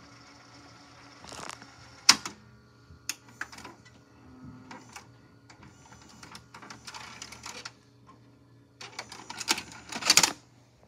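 Clicks and knocks from operating a Sanyo VCR/DVD recorder combo: front-panel buttons pressed and the deck's mechanism clunking, with a quick cluster of louder clicks near the end. A faint hum stops at the first sharp click, about two seconds in.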